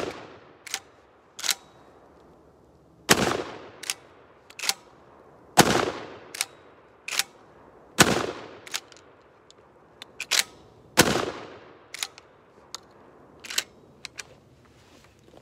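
Dickinson Commando 12-gauge pump shotgun fired five times with 2¾-inch shells, about 2.5 to 3 seconds apart, the first right at the start. Between shots come the sharp clacks of the pump action being racked, and a few more clacks after the last shot.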